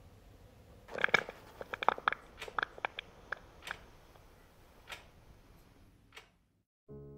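Sharp, irregular clicks and ticks: a quick cluster of them about a second in, then sparser single ticks, cutting to dead silence; piano music begins right at the end.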